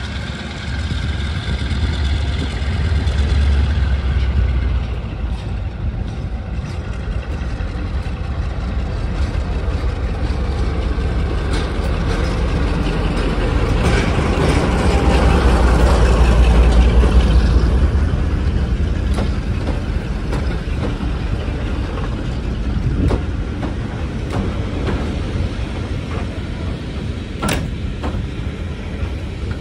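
Class 35 Hymek diesel-hydraulic locomotive running past hauling a rake of coaches, its engine swelling to loudest about halfway through as it draws level. A stationary diesel locomotive idles alongside. After the engine passes, the coaches roll by with scattered wheel knocks.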